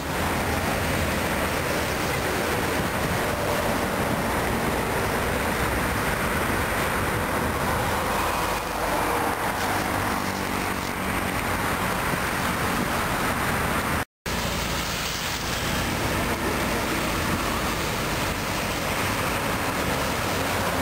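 Steady traffic noise from cars and trucks passing on a multi-lane highway. The sound cuts out for a split second about two-thirds of the way through.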